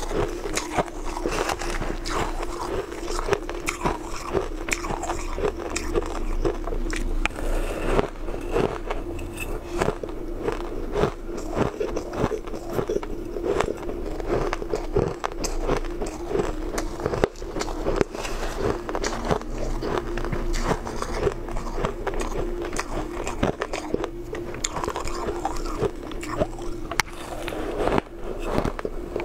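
Crushed coloured ice being bitten and chewed, a dense, continuous run of crisp crunching and crackling. A steady low hum runs underneath.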